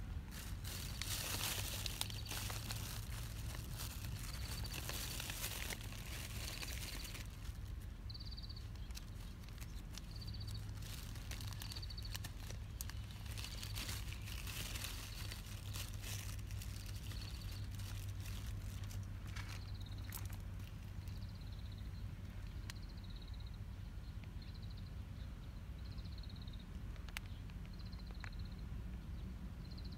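Outdoor ambience: a low steady hum underneath, bouts of rustling early on and again in the middle, and a short high chirp repeating about once a second.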